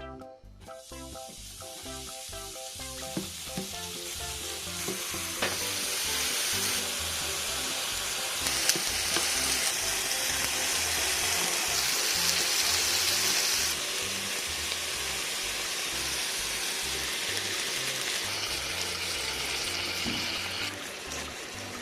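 Food sizzling steadily as it fries, building up over the first few seconds, with faint background music.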